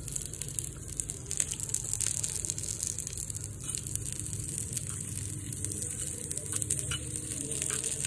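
Onion and garlic pieces sizzling on a miniature iron tawa heated over glowing charcoal, a steady hiss with scattered crackles.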